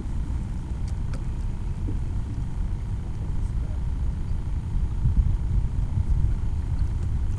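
Low, uneven rumbling noise, with a faint steady hum above it.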